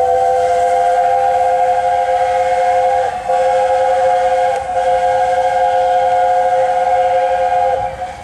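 LNER A4 Class 4-6-2 steam locomotive's three-note chime whistle sounding one long, loud blast, broken by two brief dips about three and four and a half seconds in, and cutting off near the end.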